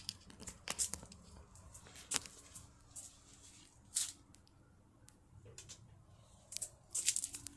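Scattered soft rustles and clicks, with a few louder ones near the end: leaves and stems brushing past a hand-held camera moved in among tomato plants, with handling noise.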